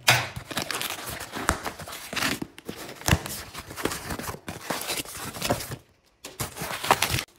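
Cardboard parcel being pulled open by hand after its packing tape was cut: tape tearing and cardboard flaps scraping and crinkling. There is a short pause about six seconds in.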